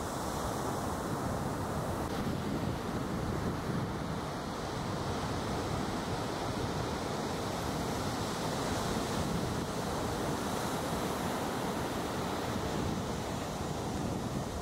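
Ocean surf breaking and washing steadily, with wind rumbling on the microphone.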